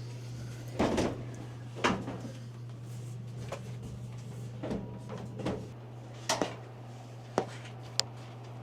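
Knocks, bumps and scrapes of a Splendide stackable clothes dryer being lifted and shifted back into its cabinet, about seven separate hits, over a steady low hum.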